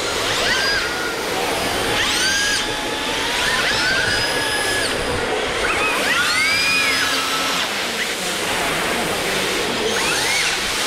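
Brushless electric motors of RC drift cars whining, sweeping up in pitch in repeated throttle bursts with several cars overlapping, over a steady hiss of the cars sliding on a smooth concrete floor.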